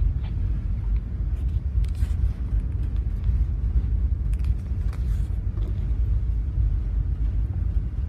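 Steady low rumble on the bridge of a container ship under way, the drone of the ship's engine and hull, with a few faint clicks.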